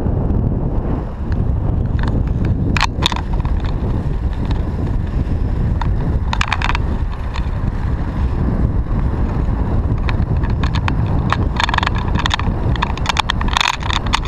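A bicycle being ridden on a paved road: a steady low rumble of wind on the microphone and tyres on the road, with short bursts of rattling as the bike goes over bumps, about three seconds in, again around six seconds, and several times near the end.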